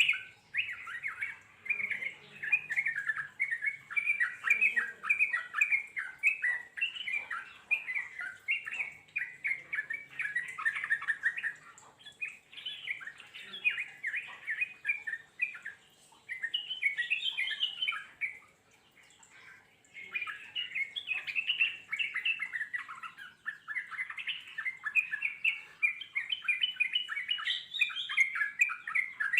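Yellow-vented bulbul (trucukan) singing a long, rapid chattering song of bubbling notes, with a short break about two-thirds of the way in.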